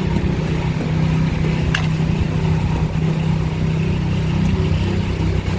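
Steady low drone and rumble of a mountain bike being ridden on a snowy road, mostly tyre and wind noise on the microphone, with a single short click about two seconds in.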